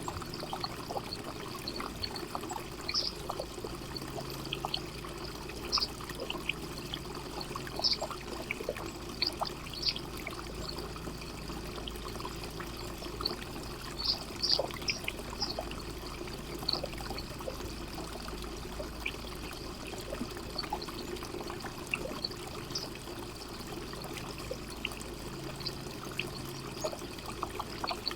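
Water fountain trickling and splashing steadily, with frequent short, sharp ticks and splashes scattered through it.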